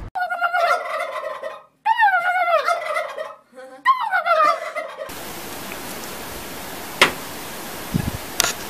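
Turkey gobbling: three gobbles in the first five seconds, each a fast, wavering rattle that falls in pitch. Then a steady faint hiss with a sharp click and a low knock.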